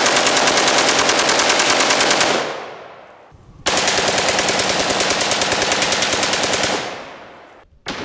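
Fully automatic AK-47 firing 7.62×39 full metal jacket rounds: two long bursts of rapid fire, each about three seconds, each trailing off into an echo. The second burst starts a little after halfway through.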